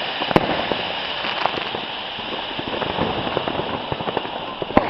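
Ground firework fountains spraying with a steady hiss and dense crackling, with a sharp bang about half a second in and another near the end.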